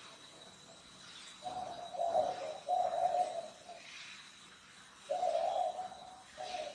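A bird cooing in low, drawn-out notes, each about a second long, in two pairs with a pause between, over a faint steady high-pitched whine.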